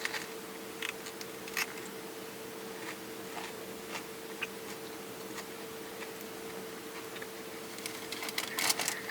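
Scattered small clicks and rustles from handling a sandwich and its wrapping, over a steady hum. A denser burst of crinkling comes near the end.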